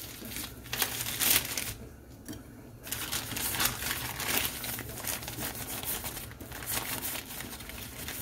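Plastic bag crinkling and rustling in irregular bursts as a bag of powdered sugar is handled and opened, with a short lull about two seconds in.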